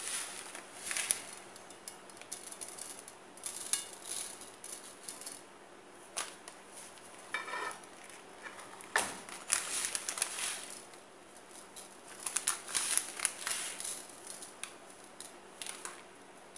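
A plastic packet of chocolate sprinkles crinkling in the hand, with light rustles and taps as the sprinkles are scattered and pressed onto the sides of a chocolate pudding cake on a ceramic plate. The sounds come in short, irregular crackling rustles.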